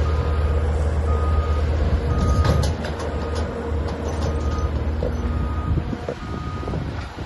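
Heavy excavator's diesel engine running under load with its backup alarm beeping about once a second as it travels into position. The engine eases off a little under three seconds in, and the beeping stops near the end.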